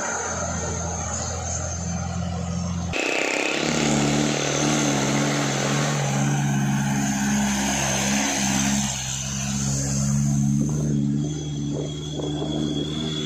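Diesel truck engines labouring up a steep grade under heavy loads: first a loaded dump truck running close by, then, after a sudden cut about three seconds in, a steady engine drone from another loaded truck climbing the hill.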